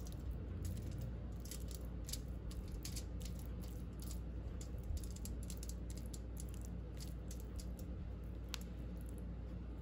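Silicone basting brush spreading garlic purée over a salmon fillet on aluminium foil: irregular light clicks and crinkles from the foil, thicker in the first half, over a steady low hum.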